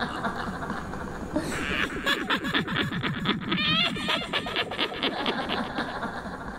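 Animal-like calls in a horror sound-effect bed: a rapid low trill of repeated pulses, with high bird-like chirps in the middle.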